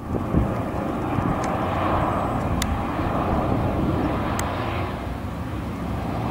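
Engines of an arriving airliner, a loud steady rumble that starts suddenly.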